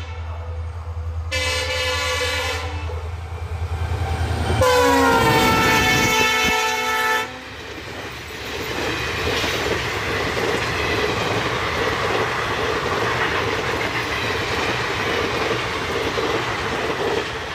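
Intercity express train approaching at speed: the locomotive's horn gives a short blast about a second in, then a longer, louder blast, over the low rumble of the engine. The passenger coaches then rush past close by with a steady clatter of wheels over the rail joints.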